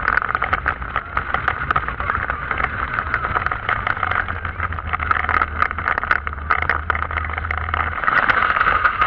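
Python steel roller coaster train running through its loops: a steady rattle and clatter of the train on the track with the rush of air past it, a little louder near the end.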